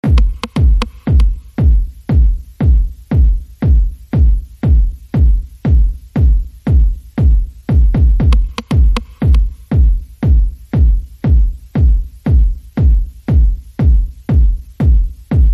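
Electronic background music built on a steady, heavy bass beat, about three beats a second.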